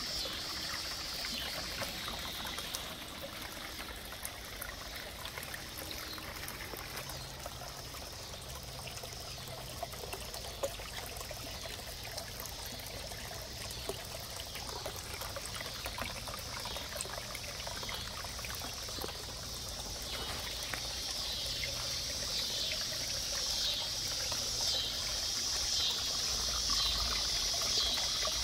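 Water trickling and splashing from a small rock waterfall into a backyard garden pond, growing louder toward the end.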